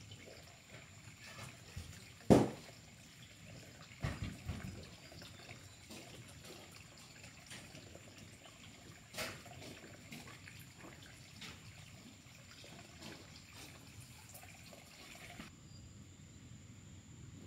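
Faint trickling water, with a sharp knock about two seconds in, a few softer thumps soon after and a small click later.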